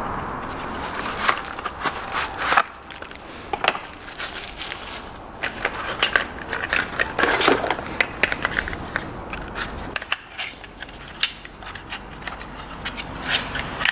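Handling of cardboard and plastic packaging as new spark plugs are unpacked: crinkling, rustling and a run of irregular sharp clicks and light taps.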